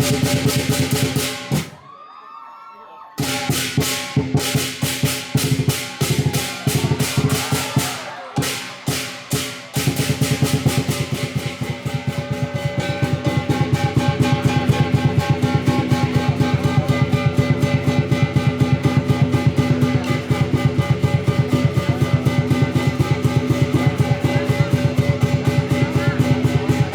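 Lion dance percussion: a big drum struck with cymbals and gong ringing over it. The strokes break off briefly about two seconds in, come unevenly for several seconds, then settle from about ten seconds into a fast, even beat.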